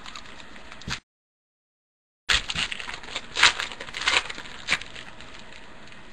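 A trading card pack being opened by hand: irregular crinkling, rustling and crackling of the wrapper, with a few sharper snaps. About a second in, the sound drops out entirely for roughly a second and a half.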